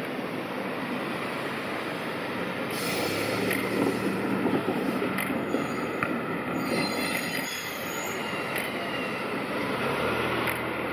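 A freight train rolling past on the rails with a steady rumble of wheels, thin high wheel squeal sliding in pitch around the middle, and a few sharp clicks.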